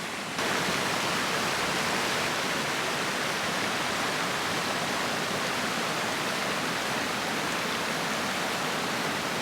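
Ram River water rushing over a waterfall: a steady, even hiss of falling water that gets a little louder about half a second in.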